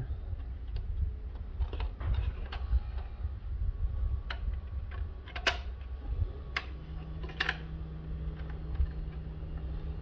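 Scattered sharp clicks and knocks of hard plastic as a 3D-printed keypad template is worked onto a plastic door trim panel, over a steady low hum; a low steady tone joins about seven seconds in.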